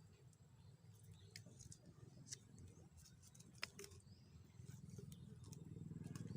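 Near silence: a few faint scattered clicks over a low rumble that swells slightly about two-thirds of the way through.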